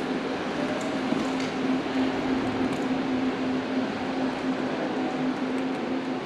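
Steady mechanical hum with one constant low tone over a broad hiss, unchanging throughout.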